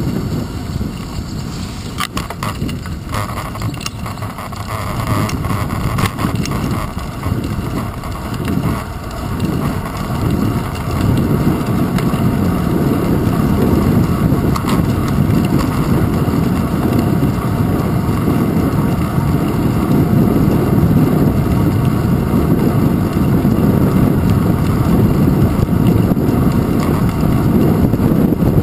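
Wind buffeting and road rumble on a handlebar-mounted GoPro camera as a bicycle rides over city streets, with a few sharp clicks and rattles in the first few seconds. The rumble grows louder and steadier after about ten seconds.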